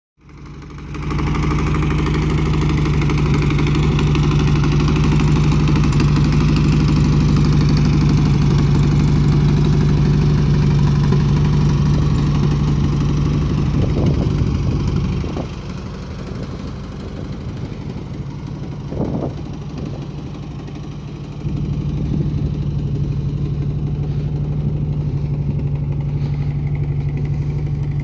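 Engine of a Fiber-Fab Gazelle kit car (1929 Mercedes replica) idling steadily at an even pitch. It is quieter for several seconds in the middle, then louder again.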